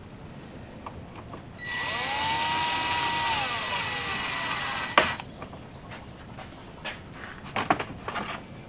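Small handheld electric power tool running for about three seconds: its motor whine rises, holds, then winds down, ending in a sharp click. A few light clicks of handling follow.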